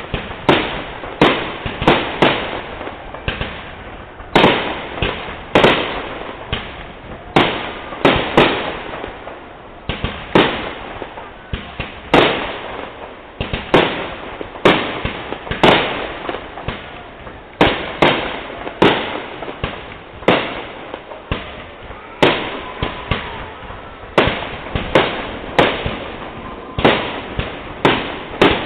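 Aerial fireworks shells bursting in quick succession, a sharp bang roughly every half second to second, each fading off in a short echoing tail.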